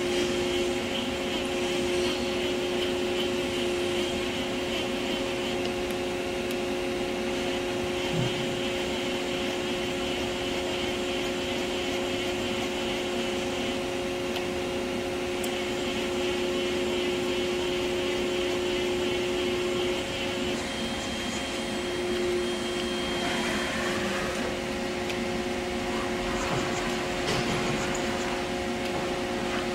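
Fadal 914-15 XT vertical machining center powered up with its spindle stopped, humming steadily. A higher whine comes and goes as the axes are jogged with the handwheel.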